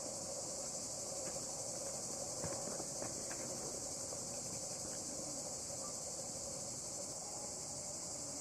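Steady, high-pitched chorus of insects in the woods, unbroken throughout. A few faint clicks and knocks between about one and three and a half seconds in, as the metal lid of a glass jar is unscrewed.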